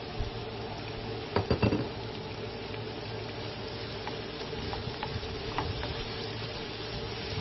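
Julienned vegetables sizzling in a hot pan as they are stir-fried, with a metal spatula clacking against the pan in a quick run of loud knocks about a second and a half in and a few lighter knocks later, over a steady hum.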